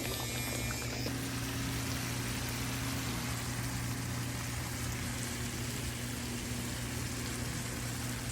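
Pan of hamburger patties and onions simmering in gravy: a steady sizzling hiss, with a low steady hum underneath.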